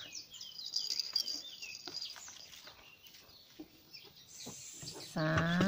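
Small birds chirping: a run of quick, high calls in the first two seconds, sparser calls in the middle, and another cluster about four and a half seconds in.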